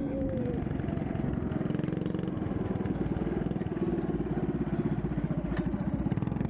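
Minibike's small gas engine running steadily, with a fast even firing pulse.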